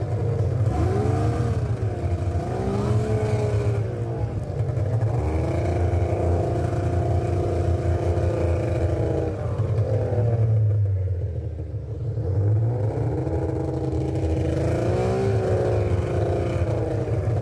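Snowmobile engine running under way, heard from aboard, its pitch rising and falling as the throttle opens and eases, over a deep steady rumble. It eases off briefly about two-thirds of the way through.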